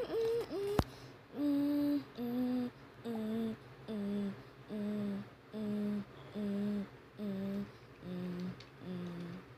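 A person humming about ten short, evenly spaced notes that step slowly down in pitch and fade, imitating a Samsung Galaxy S10's low-battery sound. A few bending hummed tones and a sharp click come just before the notes begin.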